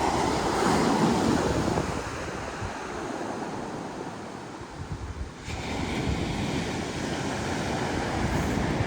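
Sea waves breaking and washing up the beach, with wind buffeting the microphone. A louder surge comes in the first couple of seconds and then eases, and a brighter hiss returns about halfway through.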